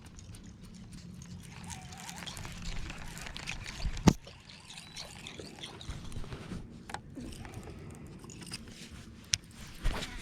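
Water sloshing and trickling around a fishing boat, with scattered small clicks, a sharp loud knock about four seconds in and two smaller knocks near the end.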